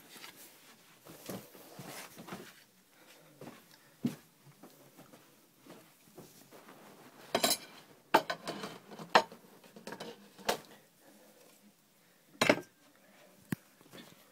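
Irregular clinks, knocks and clatter of objects being handled, with a busy cluster about halfway through and a sharp knock near the end.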